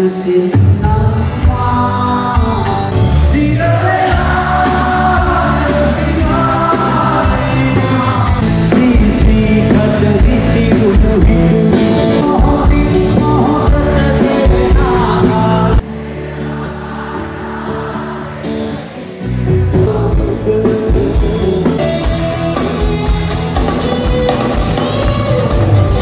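Live band playing a song with a male lead voice singing over drums, bass and keyboards. The music suddenly thins and quietens for about three seconds past the middle, then the full band comes back in.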